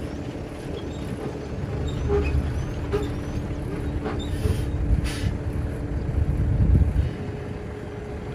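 Diesel dump truck driving slowly and maneuvering on a dirt site, its engine rumbling and swelling as it nears, with two short air-brake hisses about halfway through. The engine sound drops back about seven seconds in as the truck pulls up.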